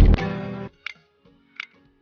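Loud background music cuts off suddenly under a second in. It is followed by a faint held tone and two sharp, isolated ticks.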